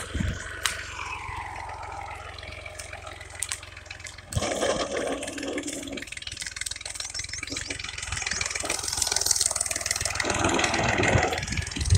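Farm tractor's diesel engine running under load as it pulls a tine cultivator through the soil. Its note slides down over the first few seconds, and it gets louder from about four seconds in.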